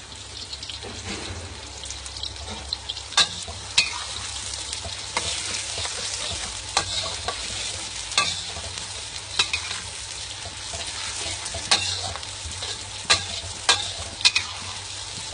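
Sliced onion, ginger, garlic and chilli frying in hot oil in a pan with a steady sizzle, while a spatula stirs and knocks against the pan about ten times.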